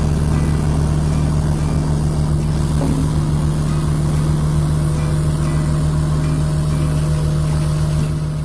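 Heavy diesel engine of a construction machine running steadily with a deep, even hum, dropping a little near the end.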